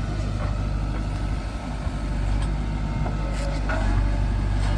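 JCB 3DX backhoe loader's diesel engine running steadily under work, growing louder about four seconds in, with a few faint knocks.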